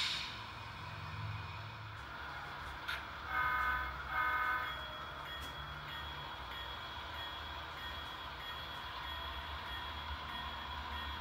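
Model diesel locomotive's onboard sound decoder giving two short horn toots, over a steady low diesel-engine rumble from the small speaker; a thin steady high whine comes in just after the toots.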